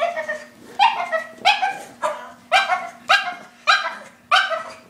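A dog barking repeatedly in a steady rhythm, about seven sharp barks evenly spaced a little over half a second apart.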